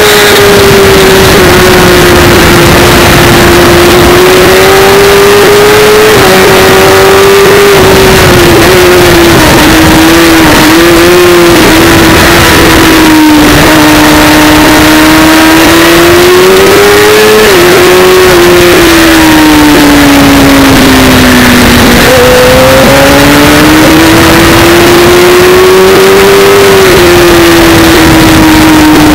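Sport motorcycle engine heard from a camera mounted on the bike, pulling hard around a race track over heavy wind rush. Its pitch climbs steadily and drops sharply at each upshift, several times, and jumps up once for a downshift about three quarters of the way through.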